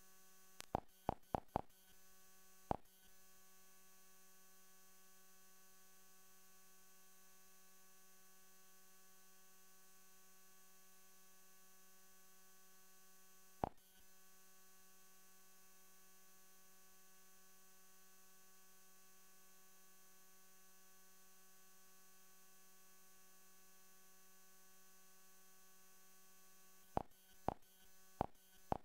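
Faint steady electrical hum made of several fixed tones, broken by short sharp clicks as menus are opened on an Android TV box: four quick clicks about a second in, one more shortly after, a single click midway, and a cluster near the end.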